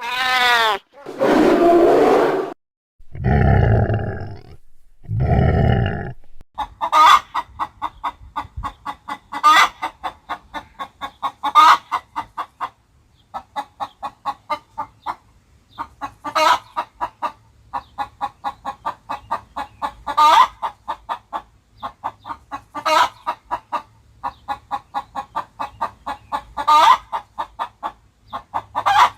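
Cartoon chicken clucking sound effect: rapid runs of short clucks, with a louder squawk every two to three seconds. The first six seconds hold other sound effects, including a falling pitched glide.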